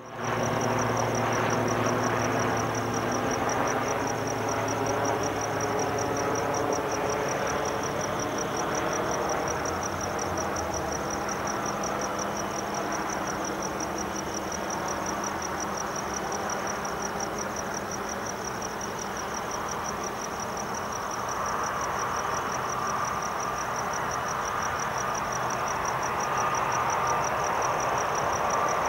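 Crickets chirping in a fast, even, pulsing trill over the distant jet engine noise of a Boeing 747-400 on final approach. An engine whine grows louder in the last third as the aircraft nears.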